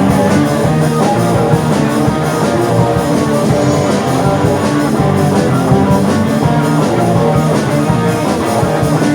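A band playing an instrumental passage of a song, without singing.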